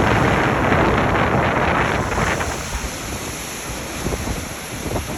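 Strong wind buffeting the microphone, gusting hardest in the first half and easing after.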